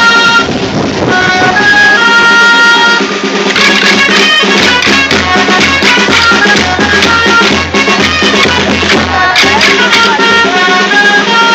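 Traditional Castilian folk music: a reedy pipe melody over a steady drone. From about three and a half seconds in to about nine and a half, sharp wooden clacks of the dancers' sticks striking together and a low drumbeat join in.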